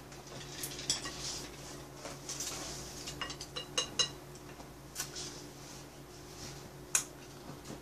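Chopsticks clicking and clinking against plates as fried chicken gizzards are picked up and eaten: scattered light clicks, a few in quick succession around the middle and the sharpest about seven seconds in, over a faint steady hum.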